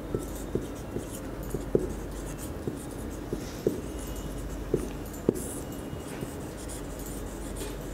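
Marker pen writing on a whiteboard: irregular scratchy strokes with short sharp ticks as the tip lifts and lands.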